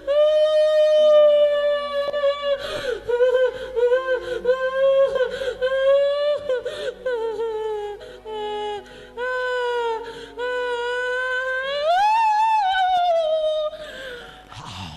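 A high-pitched voice holds long, wavering wailing notes that break off and start again every second or so. About twelve seconds in it rises sharply, then falls away. Faint steady keyboard-like chords sound underneath.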